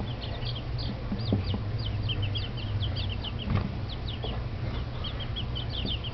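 Week-old chicks peeping continuously, many short high peeps overlapping in a constant chorus. A steady low hum runs underneath.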